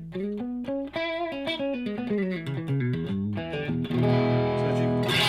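Electric guitar played through an Xotic EP Booster pedal into a Hughes & Kettner Grandmeister 40 amp and heard through the amp's microphones. It plays a quick run of single notes, then strikes a chord about four seconds in and leaves it ringing, with light overdrive breakup.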